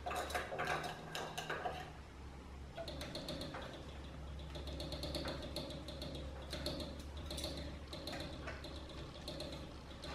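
Plastic quick-connect water-pipe fitting being done up by hand: a run of light clicks and ratchet-like ticks from the threaded plastic nut and pipe, denser from about three seconds in.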